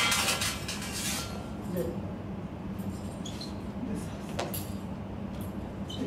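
Two large metal bagua broadswords clash once, the blades ringing brightly for about a second. A few faint taps follow.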